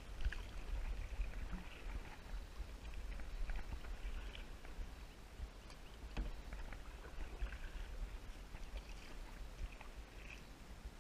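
Kayak paddling: a double-bladed paddle dipping and splashing in the water stroke after stroke, with light clicks here and there, over a steady low rumble.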